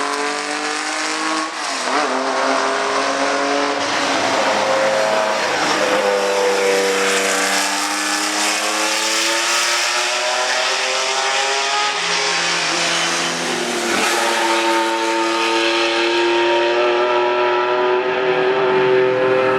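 Ferrari 512 M's 5-litre V12 racing engine under hard acceleration, its pitch climbing through the gears and dropping sharply at each upshift, several times over.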